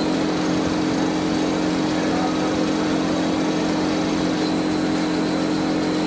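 Plywood veneer assembling (paving) machine running with a steady low motor hum under even machine noise.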